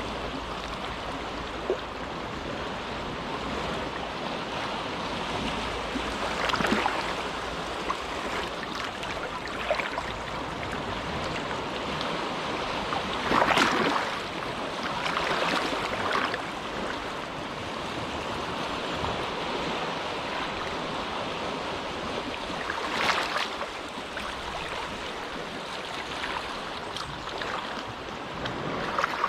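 Small, quiet waves washing into a cove: a steady wash of water with a few louder breaks, the loudest about halfway through and another around two-thirds in.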